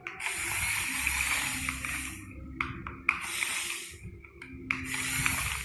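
Radio-controlled model excavator working: a steady hum from its motor, with bursts of loud hissing noise that start and stop abruptly as it moves.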